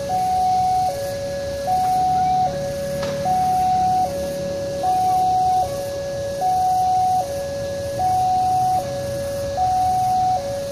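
Railway level-crossing warning alarm sounding: an electronic two-note signal that alternates evenly between a higher and a lower note about every 0.8 seconds, warning that a train is approaching. A low traffic hum runs underneath.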